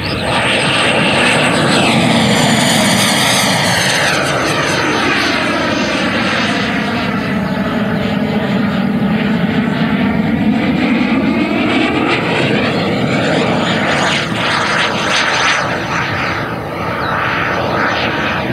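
Electric ducted-fan RC jet in flight, its fan giving a loud, steady rushing whine whose pitch sweeps up and down as it passes to and fro overhead.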